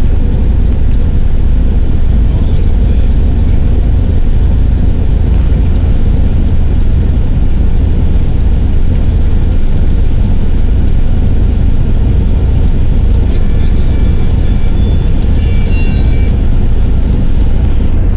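Steady low rumble of tyre and wind noise inside a car cruising at highway speed.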